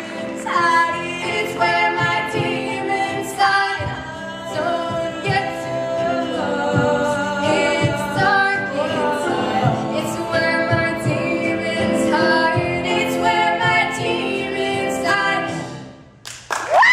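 Female voices singing a capella in close, held harmonies over a steady vocal-percussion beat. The singing breaks off suddenly near the end, and a loud scream starts.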